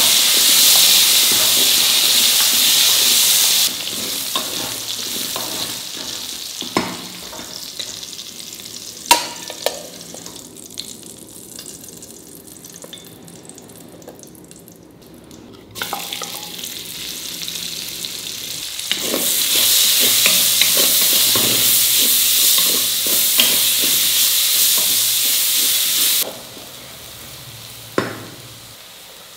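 Potato cubes sizzling in hot oil in a pressure cooker as a spatula stirs them. After a few seconds the sizzle drops away, with a few knocks of a utensil against the pot while the potatoes are lifted out. Later, sliced onions frying in the oil sizzle loudly for several seconds before dropping off again, and a spatula knocks once near the end.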